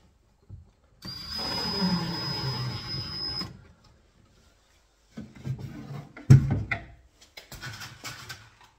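Makita cordless drill running for about two and a half seconds with a steady high whine, driving a screw through a metal bracket into a kitchen corner post. A few knocks and handling sounds follow, the loudest a single thump about six seconds in.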